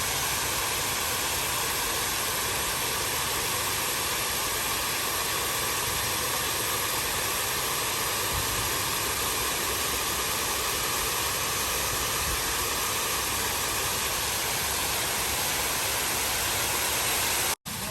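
Steady rushing, splashing hiss of water falling from a rain-style water fountain, which breaks off abruptly for a moment near the end.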